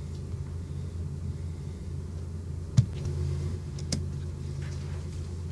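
Steady low background hum, with a sharp click about three seconds in and a fainter click about a second later.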